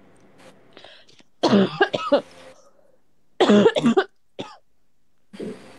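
A person coughing in two short bouts, one about a second and a half in and another about two seconds later.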